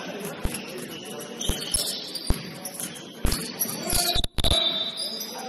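Basketball bouncing on a gym floor in irregular dribbles, with short high sneaker squeaks over an echoing hall murmur. The sound cuts out for a split second about four seconds in.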